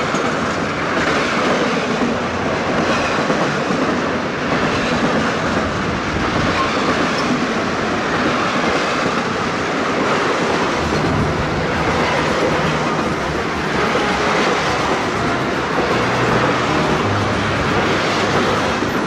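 Passenger train rolling past close by, a steady, even rumble of cars on the rails.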